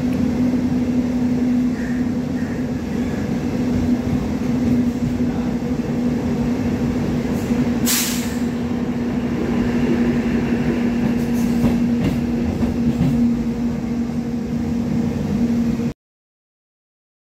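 DC traction motor of a MEMU electric train whining at a steady pitch, heard from inside the motor car over the train's running noise. A brief hiss comes about eight seconds in, and the sound cuts off suddenly near the end.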